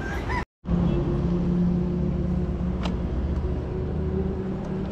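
A motor vehicle's engine running steadily, a low hum over a rumble, fading slightly near the end. A single faint click comes about three seconds in.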